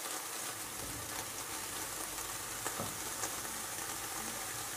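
Diced red onions sizzling steadily as they fry in a pan, with a few faint ticks.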